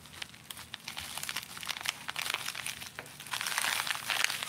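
Plastic packaging crinkling and crackling as hands work at getting it open, loudest for about a second from roughly three seconds in.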